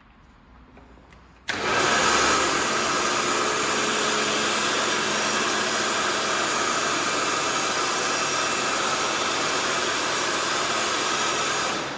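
Kärcher K2 electric pressure washer switching on about a second and a half in and running steadily, with a Kärcher FJ6 foam lance spraying foam: a loud even hiss over the hum of the motor and pump. It stops near the end.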